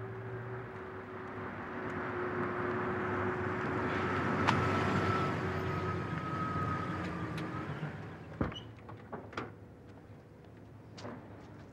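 A car driving slowly past on wet pavement: engine hum and tyre hiss swell to a peak about halfway through, then fade. Several sharp knocks follow near the end.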